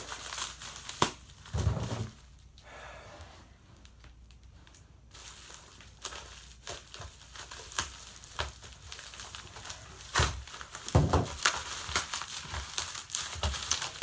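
Packaging being handled during an unboxing: rustling and crinkling with dense crackles, a few soft thumps, and a quieter stretch from about two to five seconds in.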